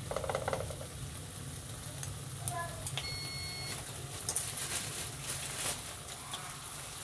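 Slices of ham sizzling in oil in a nonstick frying pan, a steady hiss with scattered crackles and pops.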